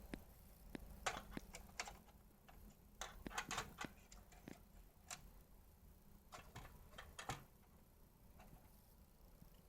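Faint, irregular clicks and brief rustles of hands handling computer hardware, in small clusters with quiet gaps between.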